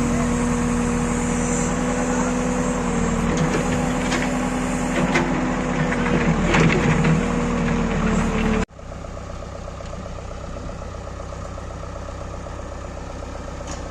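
Diesel engine running steadily with a constant hum, a few knocks and rattles between about three and seven seconds in. About two-thirds of the way through the sound cuts off abruptly to a quieter, steady engine running.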